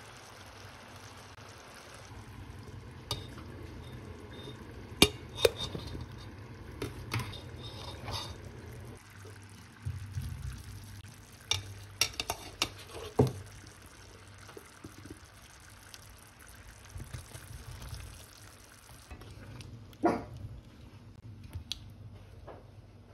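Cooking in a pot: liquid being stirred and poured, with several sharp clinks of a utensil against the pot scattered through and a steady low hum underneath.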